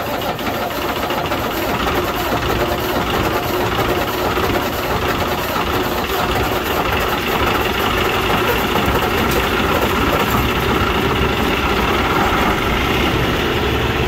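Cummins diesel truck engine running steadily in its open engine bay, sounding odd though not metal-on-metal. It was run about 30 miles without coolant, and the mechanic believes the cylinder head is cracked.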